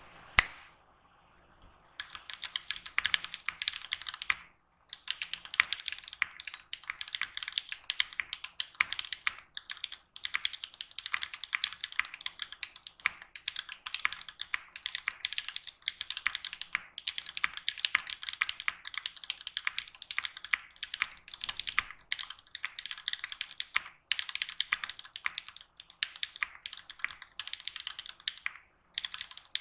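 Fast, continuous typing on a custom Phantom65 mechanical keyboard with lubed Gateron Milky Yellow linear switches on 65g springs, filmed, case-foamed and O-ring mounted, under GMK keycaps. After one sharp key click and a brief pause, the keystrokes run rapidly, broken by a few short pauses.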